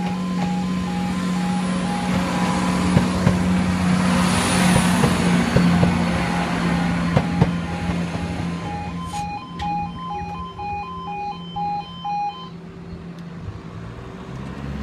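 Level crossing alarm sounding as an alternating two-tone yodel while a CrossCountry Class 170 Turbostar diesel multiple unit passes close by. The train's noise swells to a loud rush with rapid wheel clicks about three to eight seconds in, then fades. The alarm stops about twelve seconds in, as the barriers begin to lift.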